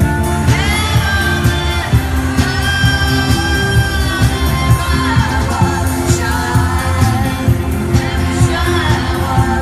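Live rock band playing, with electric guitars, drums and bass under a woman's lead vocal that holds long notes, recorded from the crowd in a large concert hall.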